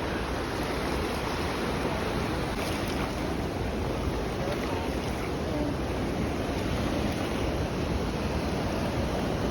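Waterfall water rushing in a steady, unbroken roar of noise.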